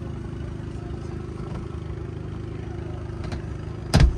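Steady low rumbling background noise, with one sharp knock about four seconds in.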